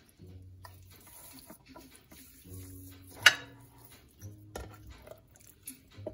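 Hands rubbing salt seasoning into a raw spatchcocked chicken in a glass baking dish: quiet wet handling and shuffling, with one sharp clink about three seconds in and a softer knock a little later.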